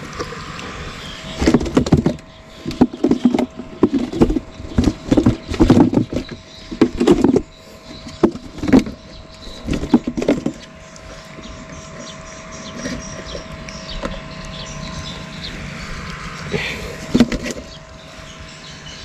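Water splashing and plastic knocking inside a cut-open jerry can as a hand chases and grabs a live mullet for bait. The flurry is busiest for the first ten seconds or so and then dies down to a few knocks, over a faint steady hum.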